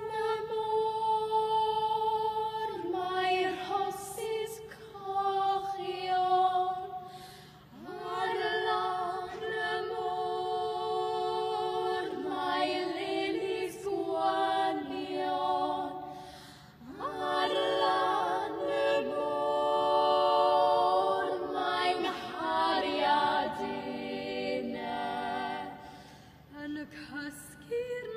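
Small vocal ensemble of young girls singing unaccompanied in harmony, in long sustained phrases with brief pauses between them.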